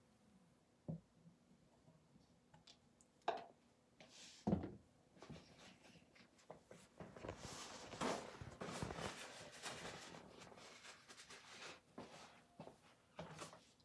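Faint handling sounds: a few soft knocks and clicks, and a few seconds of rustling around the middle.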